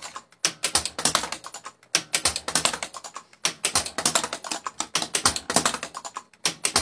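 Gottlieb Black Hole pinball machine's solenoids and relays firing over and over in a test run, a fast, uneven clatter of sharp clicks and clacks with a few brief pauses.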